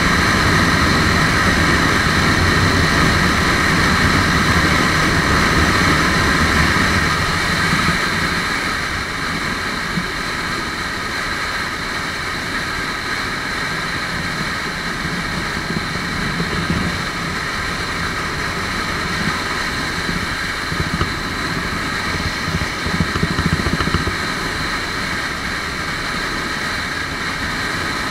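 Lifan KPR150 motorcycle's single-cylinder engine running while riding fast, mixed with wind rushing past the microphone. The sound drops in level about eight seconds in and stays steady after, with a few brief gusts or bumps near the end.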